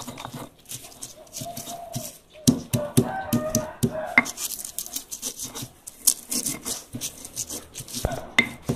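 Stone pestle (ulekan) grinding and knocking in a stone mortar (cobek), crushing garlic, salt, chillies and kaffir lime leaf into a paste: a quick, uneven run of scrapes and taps of stone on stone.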